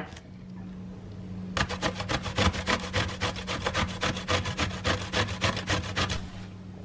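Zucchini being grated on a stainless-steel box grater: a run of quick, even rasping strokes, about five a second, starting about a second and a half in and stopping shortly before the end.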